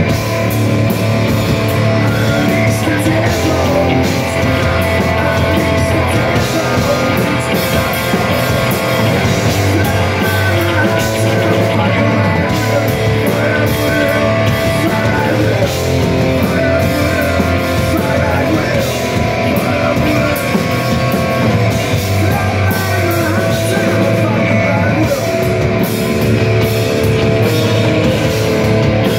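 A rock band playing live and loud: distorted electric guitar, electric bass and a drum kit keep a steady, unbroken hard-rock groove.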